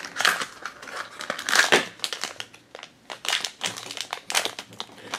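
Blind-box packaging opened by hand: a small cardboard box torn open and the foil pouch inside crinkling as it is handled. Quick, irregular crackles, with louder bunches near the start, about a second and a half in, and again after three seconds.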